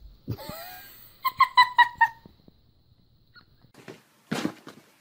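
An animal's quick string of about six high-pitched squeaks, then a few short, rough noisy sounds near the end.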